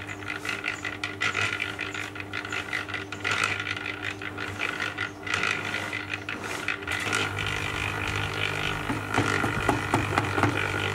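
Electric drum concrete mixer running, a steady motor-and-gear hum under the rattle of the concrete mix tumbling in the drum. From about seven seconds in the sound grows heavier and more clattering as a bucket of material is tipped into the turning drum.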